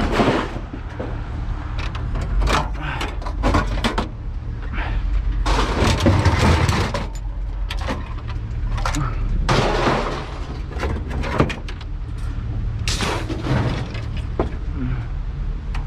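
Scrap metal clanking and scraping as it is dragged and tossed out of a pickup truck bed: irregular bangs and longer rattling crashes over a steady low rumble.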